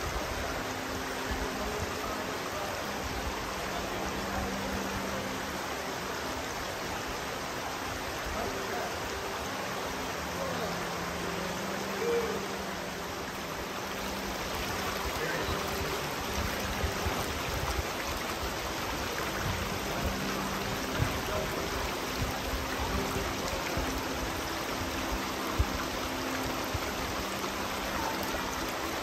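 Steady rush of flowing stream water, with a few sharp clicks or knocks, the loudest near the end.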